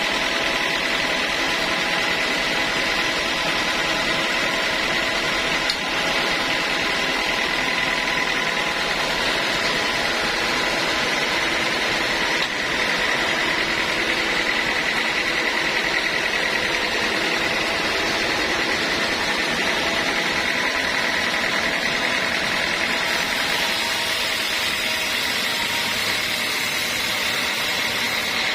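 Sawmill band saw running steadily, a constant whine over even machine noise.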